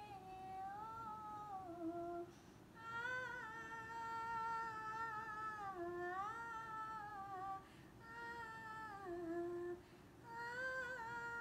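A woman humming a slow Hindi film-song melody with no accompaniment, in about four gliding phrases with short breaths between them.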